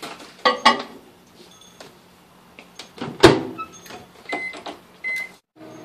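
Microwave oven being set going: clicks and knocks of handling, the door shut with a loud thump about three seconds in, two keypad beeps, then the oven starting to run with a steady hum near the end.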